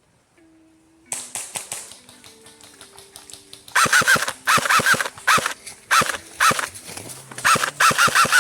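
Music: held notes stepping in pitch, with sharp clicks and then a run of loud, irregular percussive hits.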